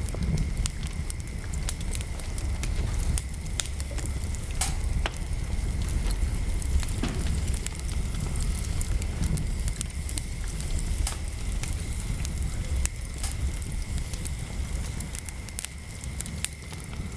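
Wood fire crackling, with many irregular sharp snaps and pops over a steady low rumble, and a faint steady high whine behind it.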